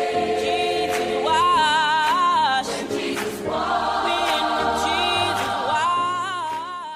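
Several voices singing long, wordless notes in close harmony with vibrato, in a gospel-choir style over a low sustained bass; a new phrase swells in about a second in and again past the middle, and the last chord fades out at the end.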